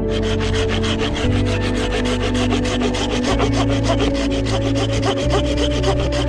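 Folding hand saw cutting through a dry, weathered driftwood branch, rasping in quick, even back-and-forth strokes.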